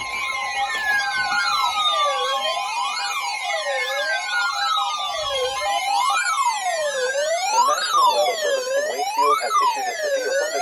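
Layered electronic alert sirens: one wail rising and falling about every second and a half, with slower tones sliding steadily downward over several seconds. Under them a steady two-tone alert signal sounds and stops about halfway through.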